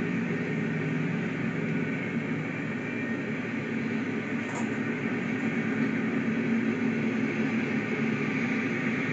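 Freight train of tank cars rolling past, a steady, even rumble and rattle heard thinly through a computer's speaker.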